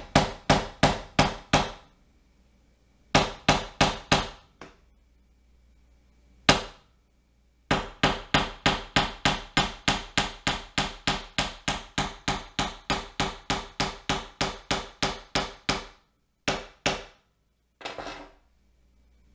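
Claw hammer driving a nail through a wooden ladder rung into a furring strip: quick, even hammer taps at about four a second in several runs with pauses between, the longest run lasting about eight seconds, then a few last strikes near the end.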